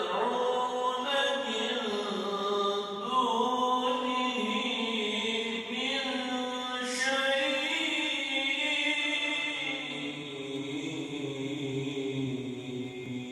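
A man's voice chanting in long, ornamented held notes that slide between pitches, in the manner of Quran recitation. A low hum joins about eight seconds in.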